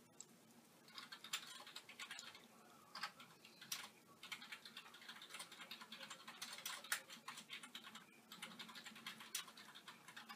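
Rain falling close by, heard as quick, irregular small taps and ticks in clusters, with a brief lull about eight seconds in; no thunder.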